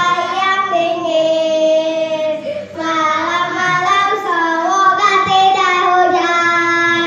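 Children singing a song together in sustained, held notes, with a short break about two and a half seconds in.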